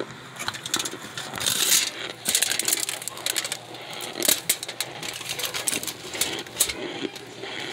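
Chunks of dry cornstarch crunching as they are bitten and chewed: a quick, irregular run of crisp crackles and clicks.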